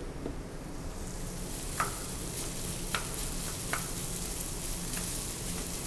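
Par-cooked risotto rice and diced butternut squash sizzling in butter in a hot pan as they are broken up and stirred, with a few sharp knocks of the stirring utensil against the pan.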